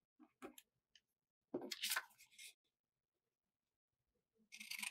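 Quiet handling of a pair of scissors and a sheet of craft paper, then near the end the scissors start cutting into the paper in short snips.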